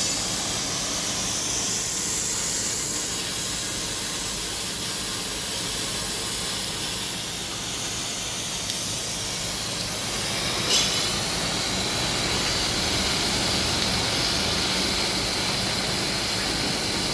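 A 12,000 W fiber laser cutting 30 mm steel plate: a steady hiss of the assist-gas jet blowing molten metal out of the cut, with one brief crackle about eleven seconds in.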